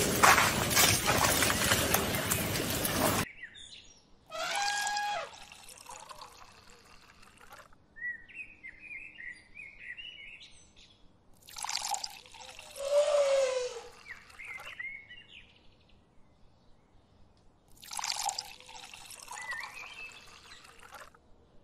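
Muddy water splashing and sloshing in bursts as a baby elephant rolls and plays in a mud wallow, with small bird chirps between the splashes. The first few seconds hold a loud, continuous rush of noise that cuts off suddenly about three seconds in.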